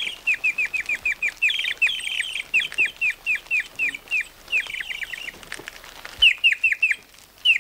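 A small bird cheeping rapidly: short, falling chirps, several a second, with a brief pause a little past the middle.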